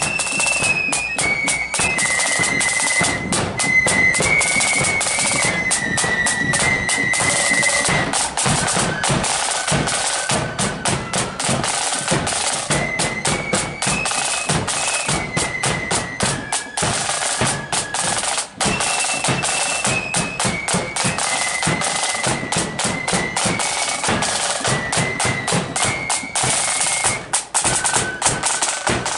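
Marching flute band playing a tune: flutes in unison carry a high melody over rapid side-drum rolls and strokes, with a bass drum beating.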